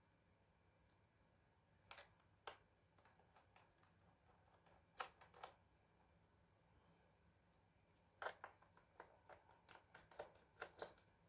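Faint, scattered clicks and taps of small laptop parts being handled, with a quicker run of them near the end.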